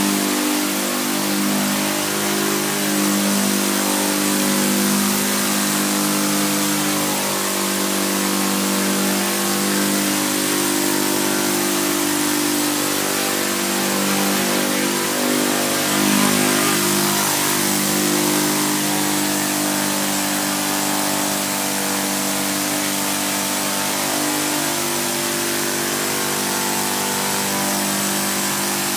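Saito FG-20 four-stroke gasoline engine of a hybrid multirotor running at flight power, with the whir of its propellers; the engine note holds steady but shifts a little up and down in pitch as the craft flies.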